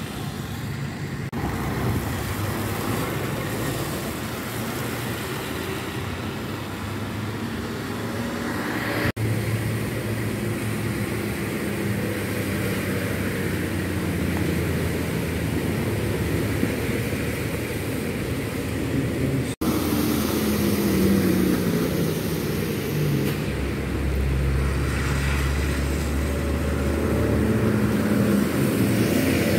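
Street traffic: motor vehicles driving past on wet roads, with engine rumble throughout and an engine note falling about twenty seconds in. The sound breaks off abruptly a few times where the footage is cut.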